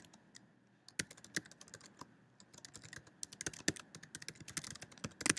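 Typing on a computer keyboard: separate key clicks, scattered at first and coming quicker from about three seconds in.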